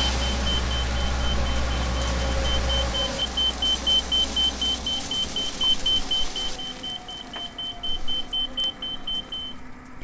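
13-inch grain auger and its drive running, then winding down, the low drive hum dropping out a few seconds in and the rest fading as the corn runs out. An electronic beep repeats evenly and rapidly, about three times a second, and stops just before the end.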